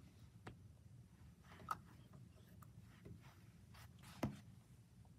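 Near silence: room tone with a few faint, short taps, the clearest about a second and a half in and near the end.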